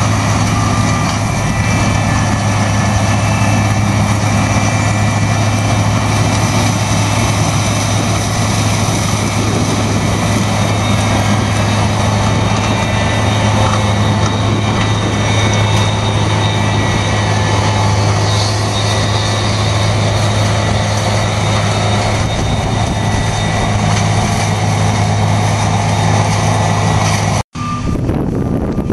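Heavy diesel harvest machinery running steadily, with a constant low drone. Near the end the sound cuts off abruptly, and a reversing beeper starts sounding.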